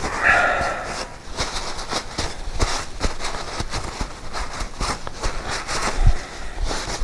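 Hand-cleaning of a greasy motorcycle chain part: irregular scraping, clicking and knocking of the part being scrubbed and handled. There is a brief squeak just after the start and a low thump about six seconds in.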